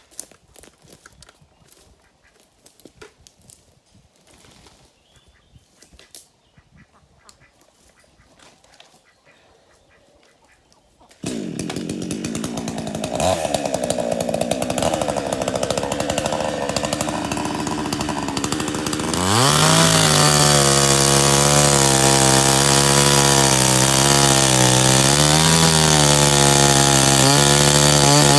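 Faint clicks and rustling, then about eleven seconds in a chainsaw starts suddenly and runs unevenly at lower speed. About eight seconds later it revs up and runs steadily at high speed.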